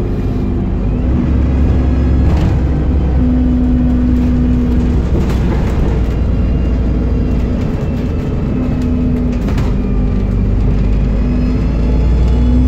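Dennis Trident double-decker bus under way, heard from inside on the upper deck: a steady low engine rumble with a hum that comes and goes, and a few sharp knocks and rattles from the bodywork. It gets a little louder near the end.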